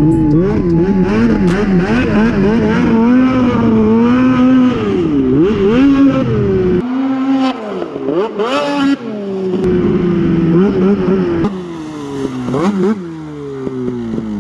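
Two-stroke race snowmobile engine revving up and down over and over as the throttle is worked, with its pitch rising and dropping sharply. Near the end the pitch falls away in a long glide as the sled slows or moves off.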